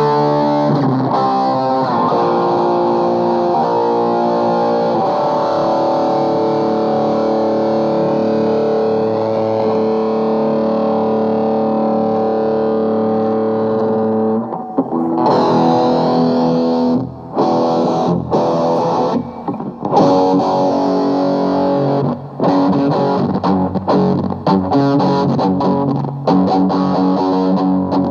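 Distorted electric guitar, a Schecter Omen Extreme played through a Blackstar HT Club 50 valve amp into a 2x12 cabinet with Celestion Vintage 30 speakers. It holds one long ringing chord for about fourteen seconds, then plays short, choppy stop-start chords.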